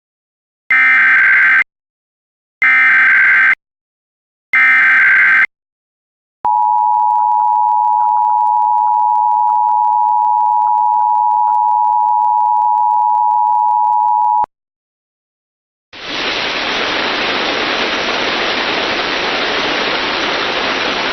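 Emergency Alert System opening for a required monthly test: three one-second bursts of SAME digital header data, a harsh buzzy screech, then the two-tone EAS attention signal (853 and 960 Hz) held steadily for about eight seconds and cut off abruptly. After a short silence, a steady hiss of noise starts about three-quarters of the way through.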